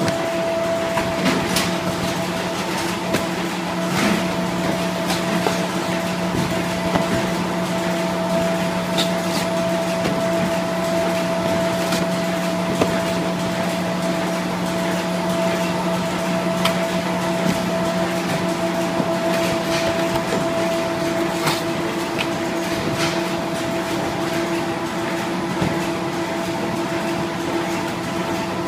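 Dingshung NIKKO Legato folder-gluer running steadily: a constant machine hum with a few steady tones, and scattered light clicks and ticks.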